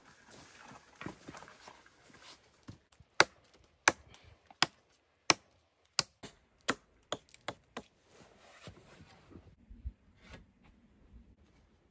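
About ten sharp knocks or taps, unevenly spaced over some five seconds, after a few seconds of soft rustling, with faint rustling again afterwards.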